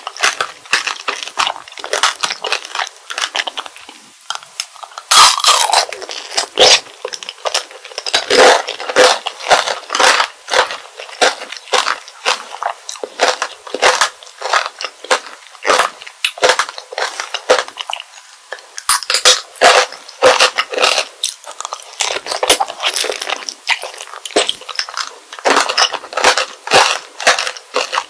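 Close-miked crunching and chewing of strawberry tanghulu: the hard, glassy sugar shell cracking and shattering between the teeth, with several louder bursts of crackling.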